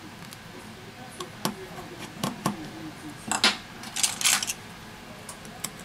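Sharp metallic clicks and clinks as a small metal repair tool touches the phone's metal frame and parts, about half a dozen at uneven intervals.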